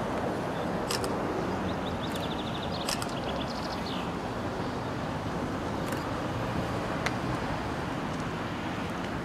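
Historic tram approaching slowly on its track: a steady low rumble with a few sharp clicks, and a short run of quick high ticks a couple of seconds in.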